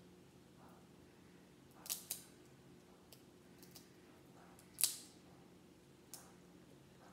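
Brittle seafood shell from reheated seafood-boil leftovers being cracked and snapped apart by hand. There are several sharp cracks: two close together about two seconds in, the loudest near five seconds, and a lighter one about a second after that. A faint steady hum sits underneath.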